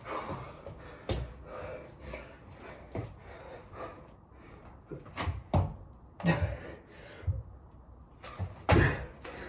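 Irregular thuds of hands and feet landing on a floor mat during burpees with push-ups, mixed with hard breathing; the loudest thud comes near the end.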